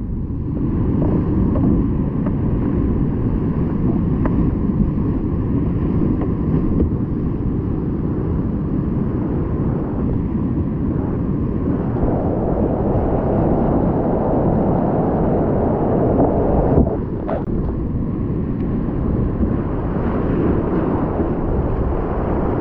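Whitewater rapids rushing and splashing around a kayak, picked up by an action camera's microphone with wind buffeting it, so the water sounds dull and low. The rush grows brighter about halfway through, with a short sharp knock a few seconds later.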